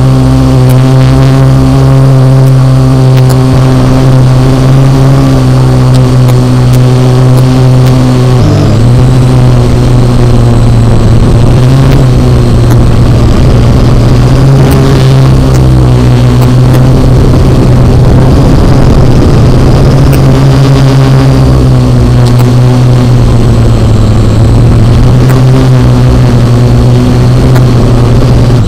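A Parrot AR.Drone quadcopter's electric motors and propellers, very loud from the camera it carries, holding a steady whirring pitch. The pitch dips briefly about eight seconds in and wavers through the middle of the flight as it manoeuvres.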